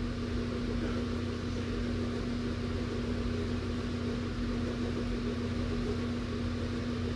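A big electric fan running steadily: an even rushing noise with a constant low hum, unchanging throughout.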